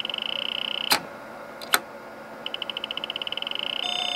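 The Zenith Z-148 keyboard's built-in electronic key-click beeper, with the space bar held down: a high beep repeats faster and faster until it blurs into one continuous tone. About a second in the key is released with a sharp click, pressed again with another click, and the beeping starts over and speeds up in the same way. Near the end a different steady beep with a lower note begins.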